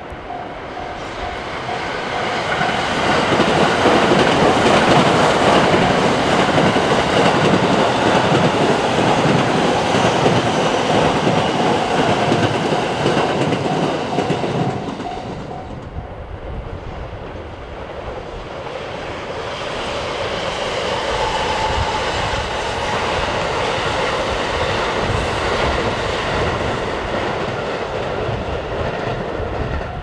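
A train on the Hokuriku Main Line passing over a level crossing, its wheels clicking over the rail joints. It is loudest for about ten seconds, eases about halfway through, then swells again. The crossing's warning bell rings as an evenly pulsed tone at the start and again at the end.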